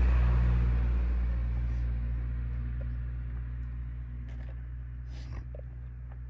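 A motor vehicle going by on the road, its low engine rumble dying away steadily as it moves off.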